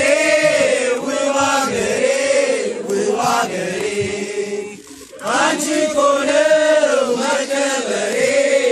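A group of people chanting a patriotic Amharic song together, with a short break between phrases about five seconds in.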